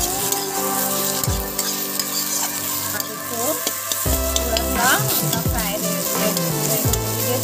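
Ginger-garlic-chilli paste sizzling in hot mustard oil in a kadhai, stirred and scraped across the pan with a metal spatula. Music plays underneath.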